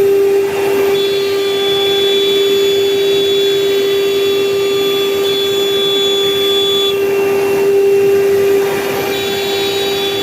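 CNC router spindle running at a steady high whine while cutting letters from mirror-finish Dekota plastic sheet, with a thinner, higher tone over it that drops out about seven seconds in and comes back near the end.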